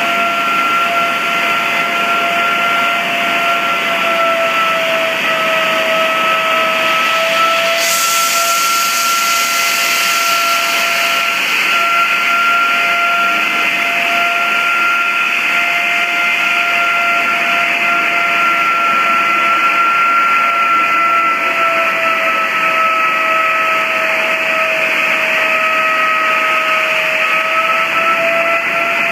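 Wolf 12-VR 12-inch ceiling blaster with vacuum blast recovery running against a concrete ceiling: a steady loud hiss of blasting and suction with a whine in it that sags slightly in pitch now and then. A brighter hiss comes in for a few seconds about eight seconds in.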